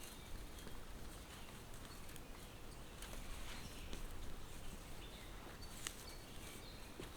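Faint outdoor ambience with a few short, high bird chirps and occasional light clicks.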